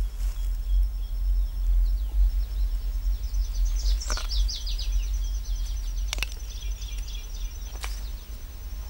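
Forest ambience: small birds chirping in short bursts over a steady high trill and a low rumble. Three sharp clicks come at about four, six and eight seconds in.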